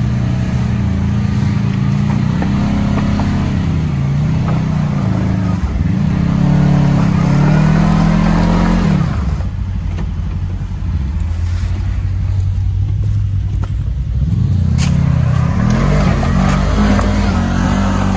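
Off-road vehicle's engine revving up and down under load on a rough trail. It eases off about halfway through and picks up again near the end.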